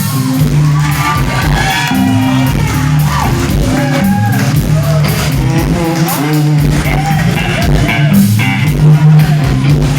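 Rock music with guitar and a bass line changing notes, with a voice singing over it.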